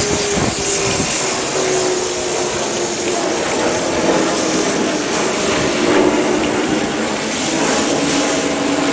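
Water hose spraying a sea strainer's basket clean, the steady hiss of the spray splashing into the water below. Under it runs a steady mechanical hum that slowly falls in pitch.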